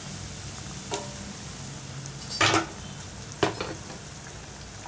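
Hot oil sizzling as pakodas deep-fry, with a metal perforated skimmer knocking against the pan three times; the knock about two and a half seconds in is the loudest.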